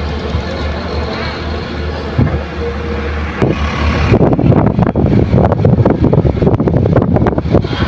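Heavy diesel machinery engine running steadily, then from about four seconds in a louder rough, crackling rumble takes over.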